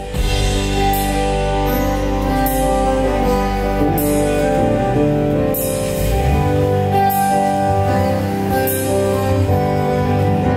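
Music: sustained chords over a deep, steady bass, with a bright crash about every second and a half.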